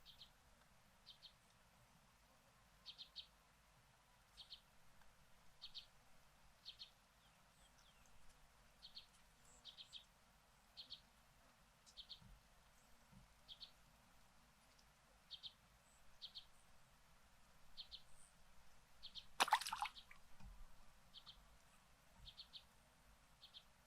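A small bird repeating short, high chirps, often in quick pairs or triplets, about once every second or so, with one louder, harsher burst about three-quarters of the way through.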